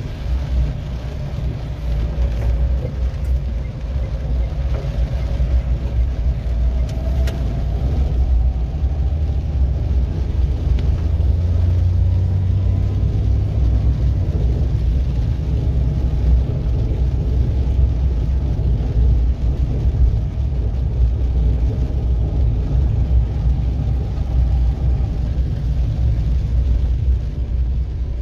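Car driving in heavy rain, heard from inside the cabin: a steady low engine and road rumble with the hiss of rain and wet tyres.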